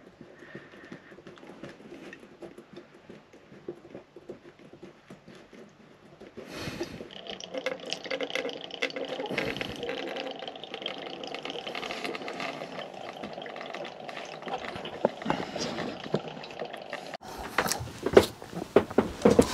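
Diesel draining from the drain tube of a fuel polisher's main filter bowl into a bowl, a steady trickle that starts about six seconds in. Near the end it cuts off and a few sharp knocks follow.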